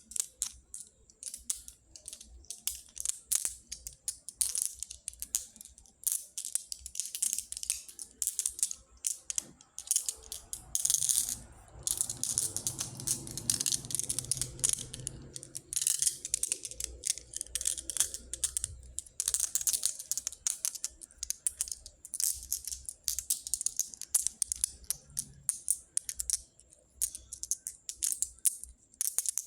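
Small pebbles clicking and clattering against one another in rapid, uneven bursts. For a few seconds in the middle the sound grows fuller and denser, like the stones being stirred or poured together.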